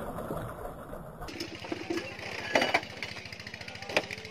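A small engine running with a fast, even beat. Two short splashes, about two and a half and four seconds in, come from a hooked fish thrashing at the water's surface beside the float.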